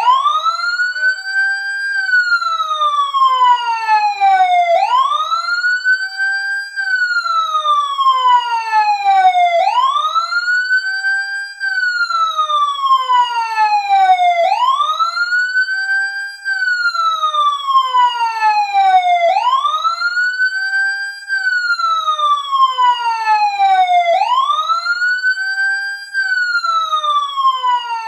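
Fire truck siren wailing as the countdown timer's alarm at zero. Each cycle climbs quickly in pitch, holds briefly at the top, then falls slowly, repeating about every five seconds.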